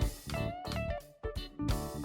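Background music led by a guitar, with notes that bend in pitch over a steady beat.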